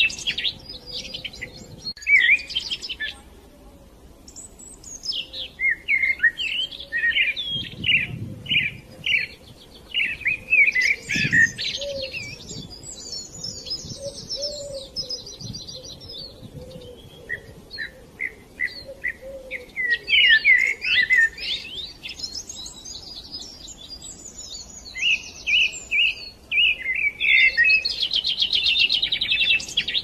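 Songbird song: varied high chirps, trills and fast runs of repeated notes in phrases with short pauses, densest near the start and near the end.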